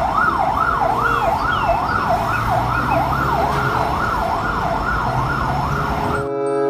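Fire-engine siren rising and falling about twice a second in a fast, steady wail, cutting off abruptly near the end.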